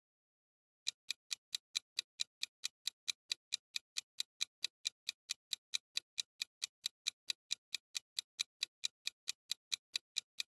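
Clock-ticking countdown sound effect: even, quick ticks, about four to five a second, starting about a second in.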